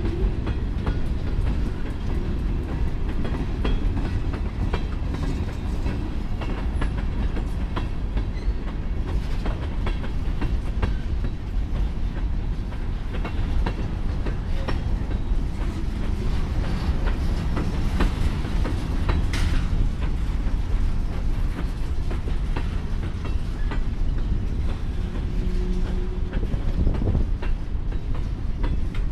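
Freight cars (tank cars and covered hoppers) rolling past close by: a steady low rumble with the clickety-clack of wheels passing over rail joints.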